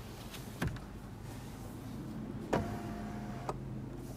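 Power moonroof of a 2014 Lexus LS 460 being worked from its one-touch overhead switch: two clicks, and a steady electric motor hum as the glass panel moves.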